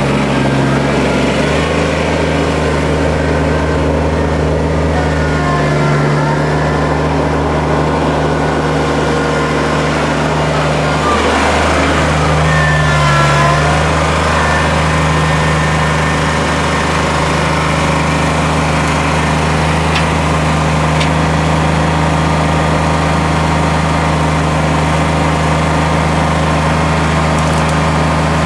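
Kubota compact tractor's diesel engine running steadily, with a short stretch of higher whines that rise and fall near the middle.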